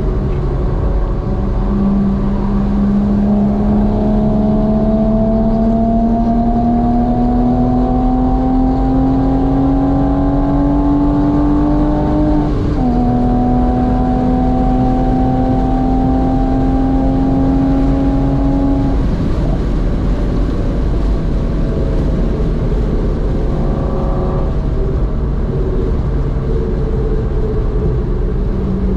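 Porsche Boxster S (986) flat-six heard from inside the cabin, pulling through a long gear with a slowly rising note. It drops at an upshift about twelve seconds in and pulls again until about nineteen seconds in. Then it lifts off, and road and wind noise carry until the engine comes back on power near the end.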